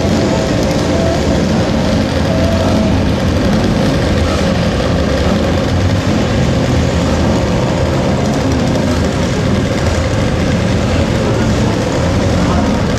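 Motorcycle engines running on the race circuit, a loud steady drone with a faint wavering whine over a dense rumble.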